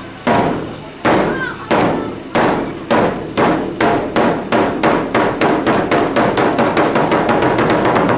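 Large Nebuta festival taiko drums struck with long sticks: single booming beats, each ringing on, that come faster and faster until they run together into a rapid roll near the end.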